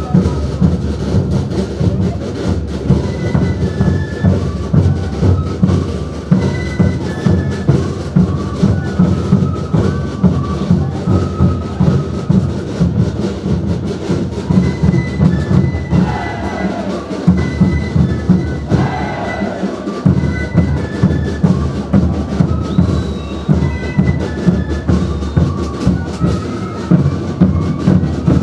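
Live Andean folk dance music from a troupe's own band: a high, piping wind melody in short held notes over steady, fast drumbeats.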